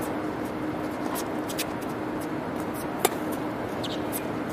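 A tennis ball struck once by a racket, a single sharp pop about three seconds in, over a steady hum and hiss in an indoor tennis hall, with faint scattered ticks.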